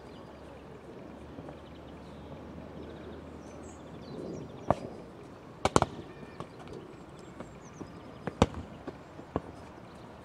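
A football being kicked on grass: a few sharp thuds, the loudest a quick cluster of three knocks a little past halfway.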